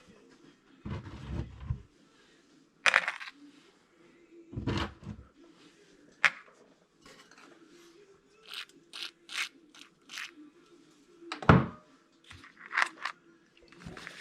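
Small RC-truck parts being handled and set down on a workbench: scattered clicks, taps and knocks, with a quick run of light clicks midway and a sharp knock near the end, over a faint steady hum.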